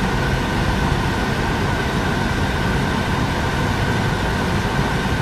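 Steady road and engine noise heard inside a moving car's cabin, with a faint even high hum over a low rumble.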